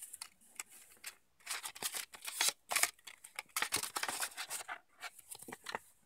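A sheet of printed paper being folded and creased by hand, crinkling and rustling in short spells, loudest around two seconds in and again around four seconds.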